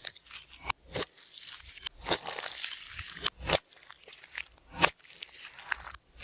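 Slime being worked by hand with glitter and makeup mixed in: irregular sticky clicks and crackles, denser for a second or so in the middle, with one loud snap near the end.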